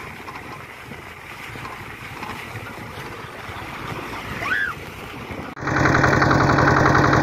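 Wind and road noise from riding on a moving bus along a dirt road, with a brief squeal a little after four seconds. Near the end a sudden cut brings in a small tractor's engine running loudly and steadily.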